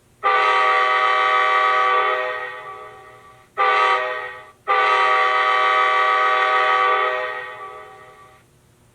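Recording of a Nathan K5LA five-chime locomotive air horn played back through an ESU LokSound 5 sound decoder's speaker in an HO-scale model locomotive. It sounds a long blast, a short one and another long one, each tailing off as the note fades out.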